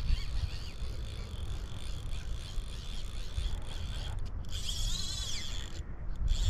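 Fly reel's drag clicking as a hooked steelhead pulls line off the spool, the clicks running into a fast buzz about five seconds in as the fish runs harder.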